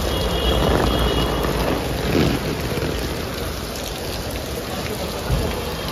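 Steady rain falling on wet pavement and shop awnings, with road traffic running alongside and a short louder swell about two seconds in.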